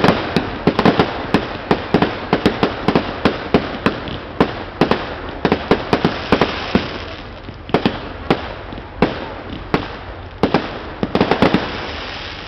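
Aerial firework shells bursting in a rapid run of sharp bangs, several a second. The bangs thin out in the middle, bunch together again about eleven seconds in, then die away near the end.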